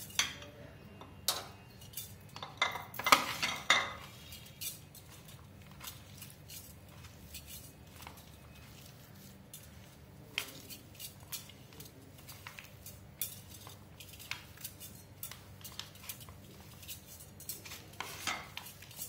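Mashed potato and chopped onion being mixed by hand on a plate: scattered light clinks and taps of bangles and fingers against the plate, busiest in the first four seconds and again near the end.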